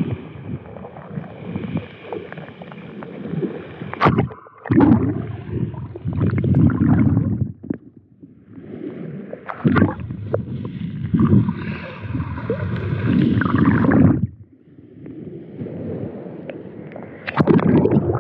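Sea water sloshing and gurgling over the microphone of a cheap action camera held underwater, heard muffled through its housing, in surges with short lulls and a few sharp knocks. The housing has a hole and is letting water in.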